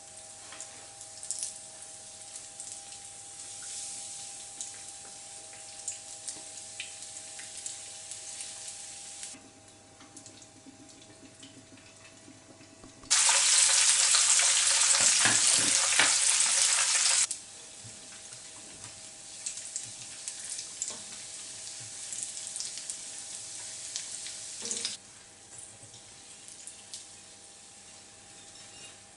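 Rice-dough fritters deep-frying in hot fat in a pan: a steady sizzle dotted with small crackles and pops. Midway the sizzle turns much louder for about four seconds, starting and stopping abruptly.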